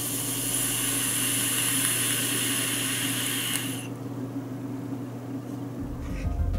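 Hiss of a long drag on an e-cigarette mounted on a Wismec Reuleaux RX200S mod: air drawn through the atomizer while the coil fires, stopping about four seconds in. Music starts just before the end.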